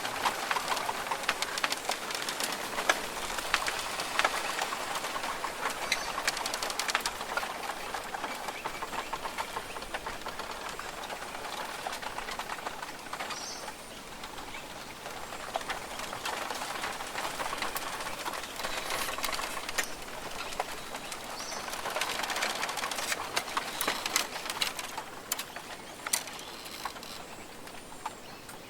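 Australian rainforest ambience: a dense patter of falling drops on foliage that swells and fades, with occasional bird calls.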